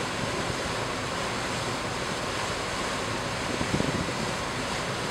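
Steady rush of wind and lake water from the deck of a moving steamship, with wind buffeting the microphone.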